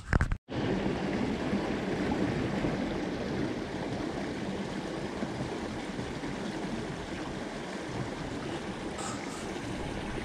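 Steady rush of running water, starting just after a brief dropout.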